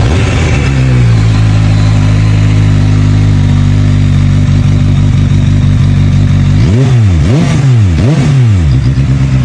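QJ Motor SRK 921's inline four-cylinder engine idling steadily, then revved with a few quick throttle blips near the end, the pitch rising and dropping back each time.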